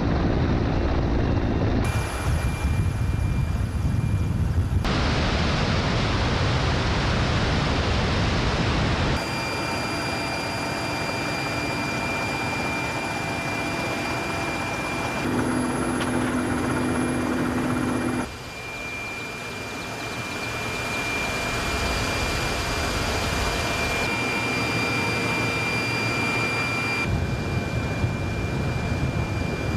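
Mi-8 military helicopter in flight: the steady rush of its twin turboshaft engines and rotor, with a high turbine whine. It comes in several segments that change abruptly in tone and loudness.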